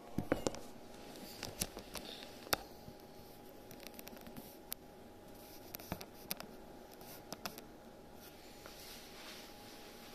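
A phone being handled and settled on a wooden tabletop: scattered light clicks and taps over the faint steady hum of a small room.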